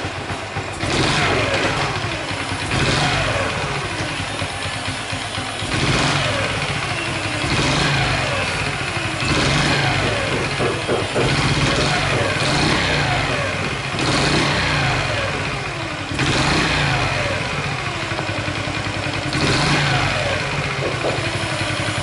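Honda Chaly's small single-cylinder four-stroke engine running and revved again and again, each rev falling back. A light rattle, karakara, goes on through it, unchanged after the cam chain tensioner was refitted, which the owner takes to come from the cylinder head or cam chain area.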